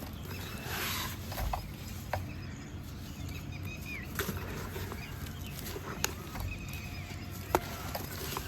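Shallow water trickling over small pebbles in a steady wash, with a few sharp clicks from the water and two brief bird calls in the background.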